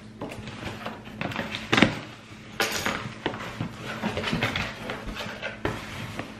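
Cardboard shipping box being opened by hand: its flaps scraped and folded back, with scattered knocks, the sharpest one about two seconds in.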